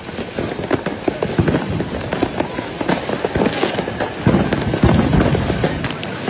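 Dense, continuous crackling of many firecrackers and fireworks going off at once, with a brief hiss near the middle and a few heavier bangs just after it.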